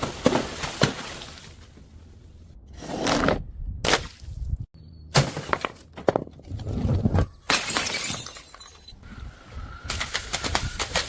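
Glass bottles smashing, several separate crashes one after another, each with a short rattle of shards.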